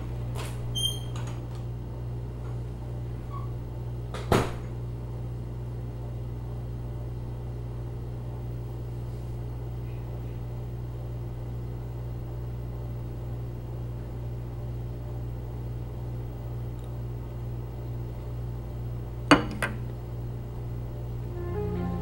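Steady low hum of a quiet room, broken by a few knocks: a door's knob and latch clicking as it opens in the first second, a single sharp knock about four seconds in, typical of the door shutting, and two sharp clicks close together near the end. Music comes in just before the end.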